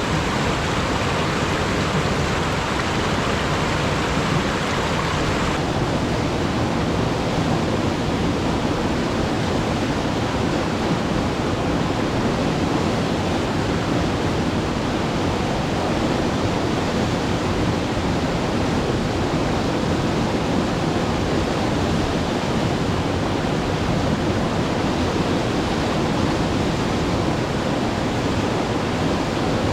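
Alpine mountain river rushing steadily over its bed, a loud, even roar of water. About five seconds in the rush turns duller and lower.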